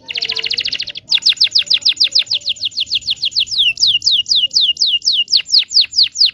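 Domestic canary singing. It gives a rapid buzzy trill for about a second, then a long roll of clear, high notes, each sweeping downward, about six a second.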